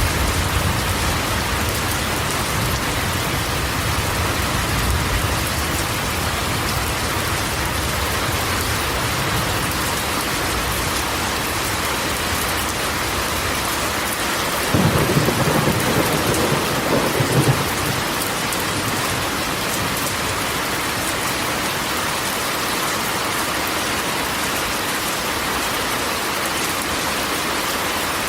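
Steady rain falling on a corrugated metal roof, an even hiss across the whole range. A low thunder rumble dies away at the start, and another rolls for about three seconds in the middle.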